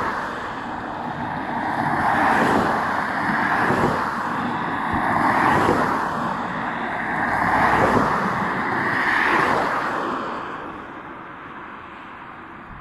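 Race convoy cars driving past one after another, each a swell of engine and tyre noise that rises and fades, about six in ten seconds. The traffic thins to a quieter lull near the end.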